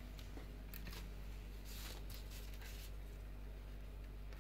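Faint rustling and light crackles of paper-backed bituminous rubber sealing tape being peeled off its backing and pressed around the edge of a plastic light lens, with a longer rustle about two seconds in, over a low steady hum.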